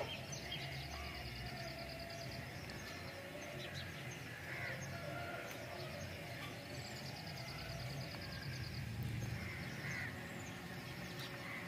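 Outdoor rural ambience: birds calling, among them crows cawing, with a high rapid trill that comes and goes.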